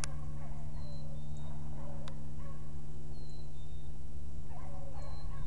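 Beagle hounds baying in the distance on a rabbit's trail, several wavering calls over a steady low hum, with a few short high bird chirps.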